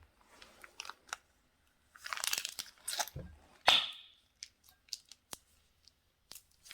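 Slime being handled and squeezed, making crackles and sticky clicks, with one sharper, louder pop a little over three and a half seconds in.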